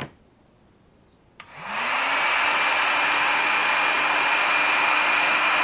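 Hot air gun switched on with a click about a second and a half in, its fan motor spinning up and then blowing steadily. It is heating a piston so the gudgeon pin will slide in easily.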